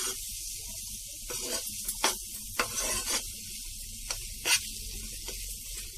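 Bread halwa mixture of bread and sugar sizzling gently in a nonstick pan as it cooks down to thicken. A metal spoon stirs through it in several short scraping strokes.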